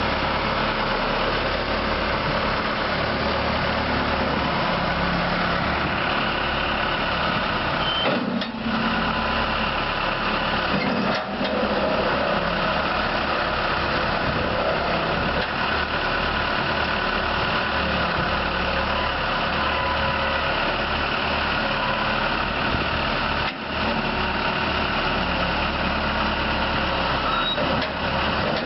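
Case 580L backhoe's four-cylinder diesel engine running steadily, with a few brief dips in the sound.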